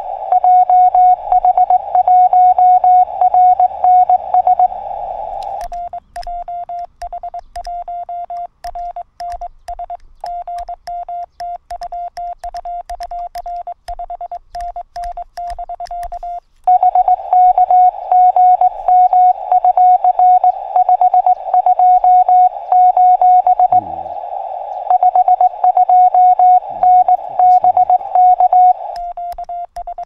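Morse code (CW) from a Yaesu FT-818ND transceiver: a single beep tone keyed on and off in rapid dits and dahs. During the first five seconds, and again from about halfway to near the end, the tone is louder and comes with a hiss of band noise around it. In between it is a quieter, cleaner keyed tone.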